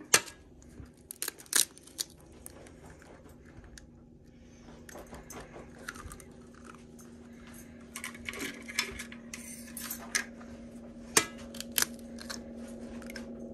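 Eggs being cracked against the rim of a stainless steel mixing bowl: sharp taps, several near the start and two more near the end, with rustling handling noise between and a faint steady hum underneath.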